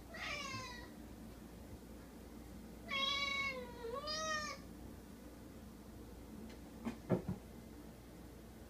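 Domestic cat meowing: one short falling meow, then a longer two-part meow a few seconds later. A few sharp thumps follow near the end.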